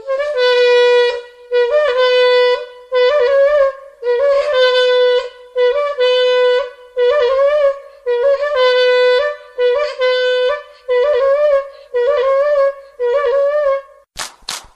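A wind instrument blowing about a dozen short sustained notes, each around a second long, nearly all on one pitch with a small upward scoop at the start and a few a step higher. A few sharp clicks come right at the end.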